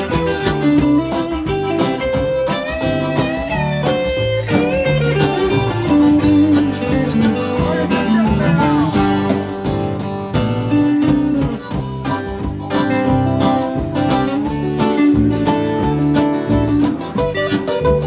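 A live country-folk band plays an instrumental break with no singing. A Telecaster-style electric guitar takes the lead with bent notes, over strummed acoustic guitar and drums.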